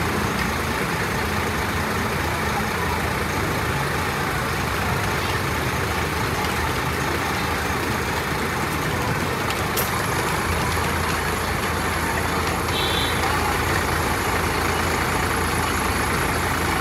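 Steady noise of a vehicle engine idling, a low rumble with a hiss over it.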